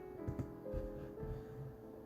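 Background piano music with a few dull thumps over it, about a third of a second in, near the middle, and once more later.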